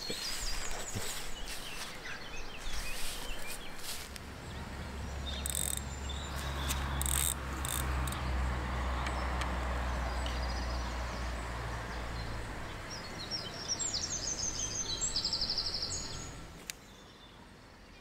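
Outdoor riverside ambience: a low rumble swells and fades through the middle, and a small bird sings a rapid high trill near the end.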